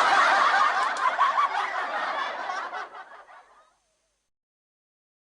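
Audience laughter, many people laughing at once, dying away and ending about three and a half seconds in.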